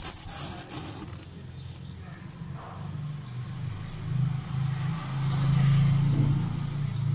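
A low, engine-like motor hum that grows louder, loudest a little before the end, with some crackling at the start.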